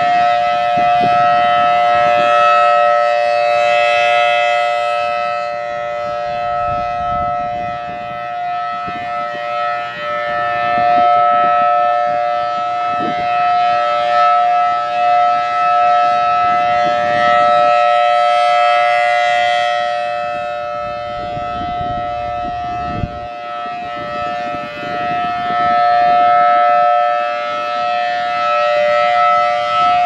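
Federal Signal Thunderbolt 1000T rotating siren sounding the Full Alert signal: one steady, unwavering tone that swells and fades as the horn turns toward and away from the listener. Gusts of wind rumble on the microphone in between.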